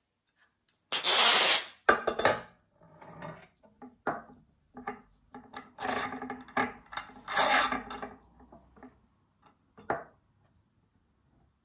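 Workshop handling noises as the steel and wooden parts of a home-built printing press are worked: a loud scrape about a second in, then an irregular run of short metallic clinks, knocks and rubbing scrapes.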